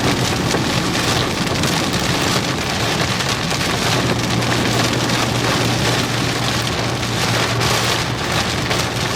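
Heavy rain beating steadily on a moving vehicle, a dense hiss over a steady low hum from the road and vehicle.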